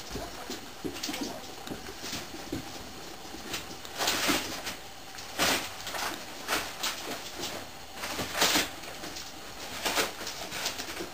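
Spanish mastiff puppies moving about and mouthing toys: short scratchy rustles every second or so, loudest about four and eight seconds in.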